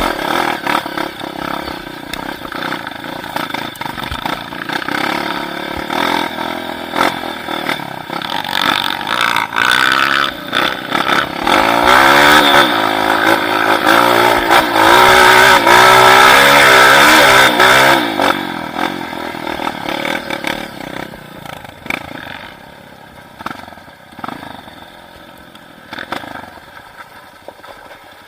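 Motorcycle engine revving up and down repeatedly over rough ground, with some clatter. It is loudest in the middle and fades away over the last several seconds.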